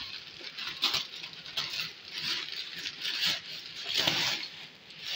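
Plastic courier mailer bag crinkling and rustling in irregular bursts as it is cut open with scissors, and a foam-wrapped box is pulled out of it. The loudest rustle comes about four seconds in.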